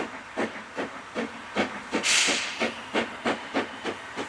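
Narrow-gauge steam locomotive chuffing as it pulls away, with about three exhaust beats a second. A loud hiss of released steam comes about two seconds in.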